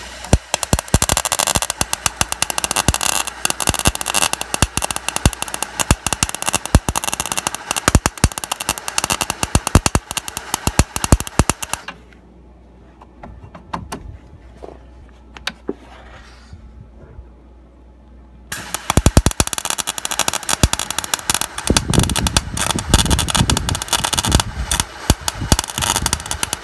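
MIG welder arc crackling as it welds thin body steel, in two runs: one of about twelve seconds, then a pause of about six seconds, then another lasting to the end.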